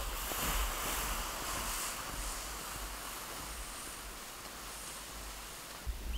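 Snowshoes and a dog-pulled plastic toboggan sliding over snow: a steady hiss that slowly fades as they move off.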